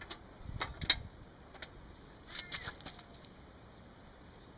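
A few faint clicks and knocks of hand tools being handled on the motorcycle's rear axle, mostly in the first second, with a brief faint scrape a little past the middle.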